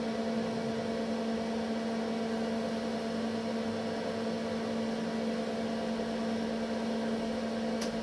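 Steady electrical mains hum from the running test gear, a variac and a dimmer each powering a lit filament lamp, held on a couple of low steady tones. A faint click near the end.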